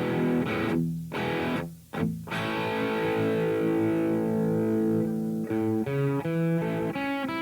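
Electric guitar played through a Revv G3 distortion pedal: distorted chords struck and let ring, cut short twice early on, then one long sustained chord, followed by single picked notes near the end.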